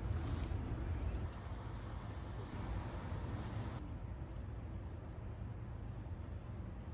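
Insects chirping in a high, evenly pulsing trill over a steady low rumble; a wider hiss underneath fades out about four seconds in.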